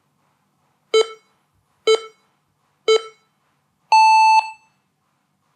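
FPV lap timer's race-start countdown: three short beeps a second apart, then one longer, higher-pitched beep signalling the start of the race.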